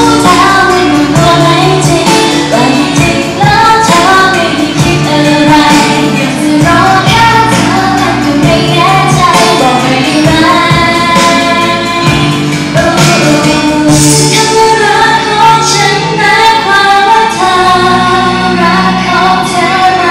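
Thai idol pop song performed live: a female singer's voice through the stage microphone over a loud backing track with a steady beat.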